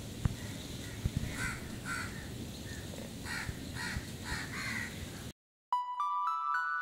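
Crows cawing, about half a dozen calls spread over five seconds, over a low outdoor background with a few soft bumps. The sound then cuts out briefly, and music with ringing, bell-like notes starts near the end.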